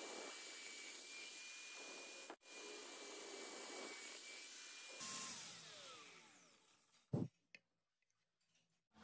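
Electric drill running steadily as a twist bit bores through a wooden gun grip. About five seconds in it is released and spins down with a falling whine, followed by two sharp knocks.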